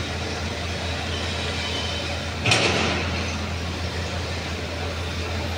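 Street traffic with a steady low engine hum. About two and a half seconds in comes one short, sharp hiss that fades within about half a second.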